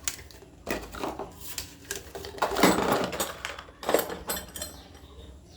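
Rotary hammer drill accessories being handled: a few short clinks, scrapes and rattles, the loudest a longer clatter about two and a half seconds in.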